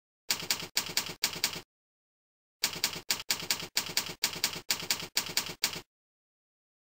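Typewriter key-clacking sound effect, synced to text being typed onto the screen. It plays in two runs with sharp starts and stops: a short one just after the start, and a longer one from about two and a half seconds to about six seconds.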